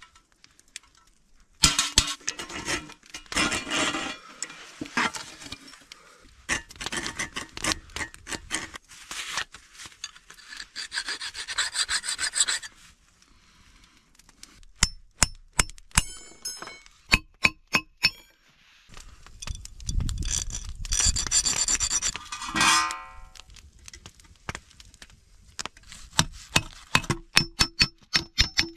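Hand forging of steel: stretches of rasping, scraping metalwork, and two runs of about a dozen hammer blows on hot steel rod, each blow ringing with a metallic tone.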